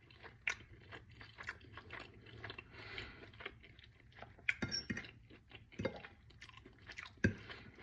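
A person chewing a mouthful of meatloaf close to the microphone: soft, irregular wet mouth clicks and smacks, a few sharper ones past the middle.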